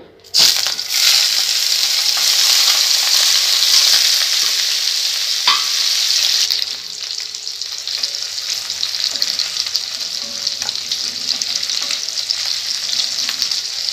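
Paneer cubes hitting hot oil in a nonstick kadai and frying: a loud sizzle starts suddenly just after the start, eases somewhat about halfway through, and carries on steadily. A single sharp knock comes about five seconds in, and a wooden spatula stirs and turns the cubes in the oil.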